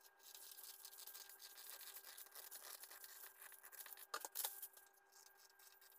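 Scissors cutting through brown pattern paper: faint, uneven rasping cuts, with a couple of sharper clicks about four seconds in.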